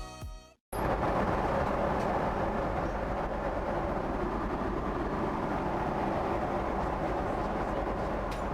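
Steady cabin noise of a Boeing 777-200ER in flight: an even, unbroken roar of engines and rushing air. It cuts in abruptly just under a second in, after music fades to a brief silence.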